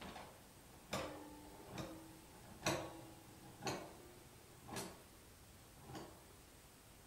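Toy piano tapped with a small stick inside its open case: seven sharp taps, roughly one a second, some followed by a short, low ringing note.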